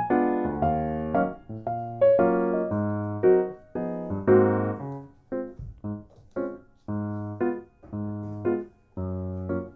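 Background music: a light electric piano tune of short, separate notes over a repeating bass line.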